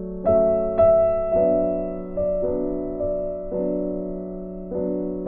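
Background piano music: slow, gentle chords, a new one struck about every second and each left to fade.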